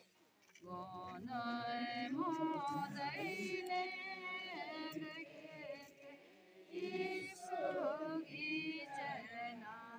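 A group of voices singing a slow devotional hymn together, starting about half a second in, with a short pause about six seconds in before the singing resumes.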